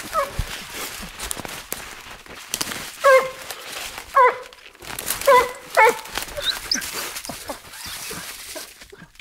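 Young dog, seven months old, giving several short, high yelping barks about a second apart, starting about three seconds in. Brush rustles and twigs crackle throughout as it pushes through the undergrowth.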